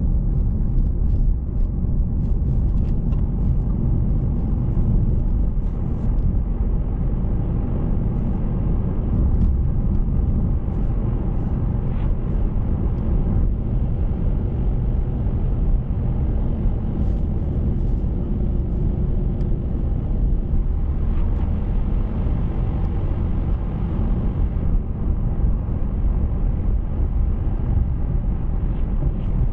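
A car driving along a road: steady road and engine noise, strongest in the low end, with a few faint ticks.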